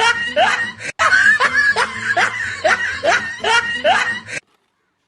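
A person laughing in a quick, steady run of falling 'ha' syllables, about three a second, with a brief break about a second in and an abrupt cut to silence about four seconds in.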